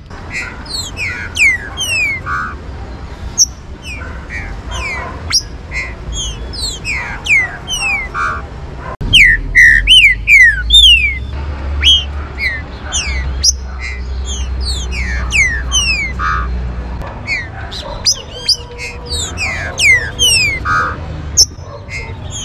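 Green-winged saltators (trinca-ferro) singing and calling: quick runs of short, falling whistled notes from several birds at once, loudest about halfway through. A low rumble sits underneath through the middle.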